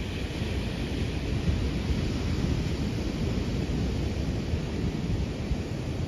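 Ocean surf breaking and washing up the shore under a steady low rumble of wind on the microphone. The hiss of the wash swells over the first few seconds, then settles.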